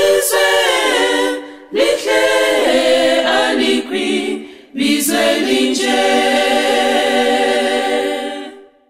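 A cappella choir singing the last phrases of a hymn in close harmony, with no instruments. The final chord is held for several seconds and fades out near the end.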